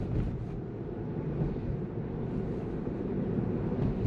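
Steady road and tyre noise heard inside the cabin of a Tesla electric car cruising along a street, a low even rumble with no engine note.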